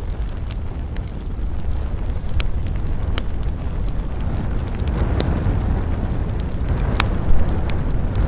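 Wood campfire burning: a steady low rumble of flames with scattered sharp crackles and pops, one louder pop about seven seconds in.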